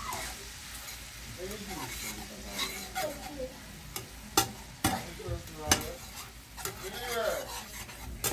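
Grated garlic sizzling in melted butter in a frying pan, stirred with a metal slotted spatula that scrapes the pan and clacks against it several times around the middle.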